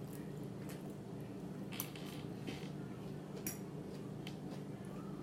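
Cutlery clicking lightly against a plate during a meal, with about nine scattered faint clicks over a steady low hum.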